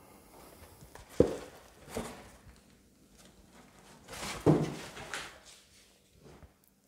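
A few knocks and thumps as the heavy metal-cased Blu-ray player is handled and turned on a cloth-covered table. The sharpest knock comes about a second in, a softer one a second later, and a longer thump about four and a half seconds in.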